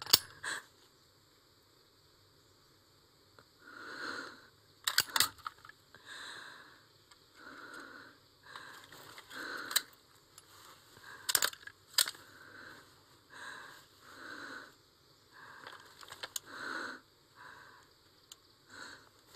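A wounded woman's ragged, labored breathing: about a dozen short, heavy breaths in and out, with a few sharp clicks among them.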